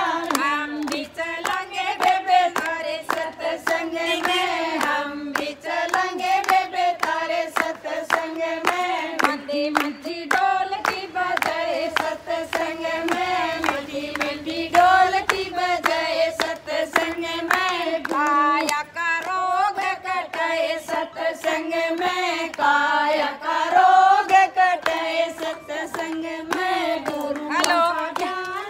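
Group of women singing a devotional bhajan together, clapping their hands steadily to the beat.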